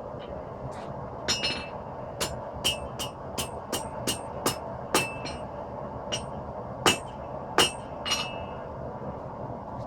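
Hand hammer striking a 5160 spring steel knife blank on an anvil, with about a dozen uneven, ringing blows. The strikes fall mostly in the first two thirds, and the two loudest come near the end, over a steady background noise.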